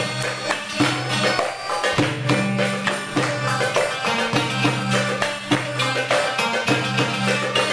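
Live Middle Eastern dance music from a small band: accordion chords and a plucked stringed instrument over a steady rhythm of hand-struck tambourine jingles.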